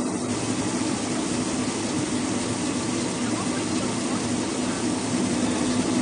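Brush-roller washing and peeling machine (QD-MS-800) running: a steady motor hum under the hiss of water jets spraying onto ginger on the rotating brush rollers.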